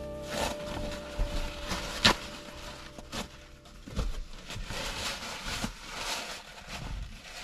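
Handling noises: a few sharp clicks and knocks, the loudest about two seconds in, then a stretch of rustling. Background music fades out just at the start.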